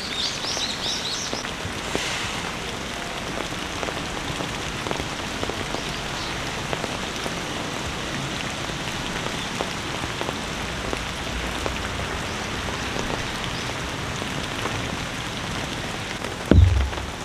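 Heavy rain falling steadily in a downpour, with a few short bird chirps in the first second and a loud low thump near the end.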